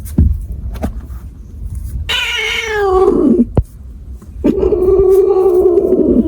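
A cat giving two drawn-out meows. The first slides down in pitch, and the second is longer and holds steady near the end. A short low thump comes right at the start.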